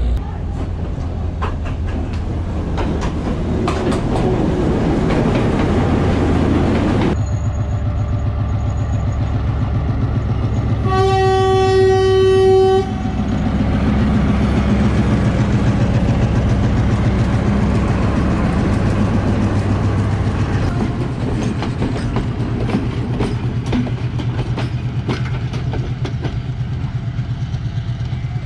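Sri Lankan diesel trains running past in several cut-together clips, a steady low engine sound with wheels clicking over the rail joints. About 11 seconds in, a train horn sounds one steady note for about two seconds.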